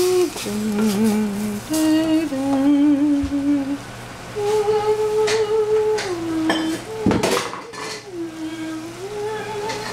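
Someone humming a slow tune in long held notes while cooking utensils clink against pots and dishes, with a louder clatter about seven seconds in.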